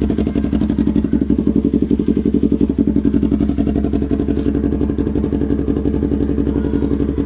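Yamaha R25's parallel-twin engine idling steadily through an SC-Project full-system exhaust, a low, even pulsing.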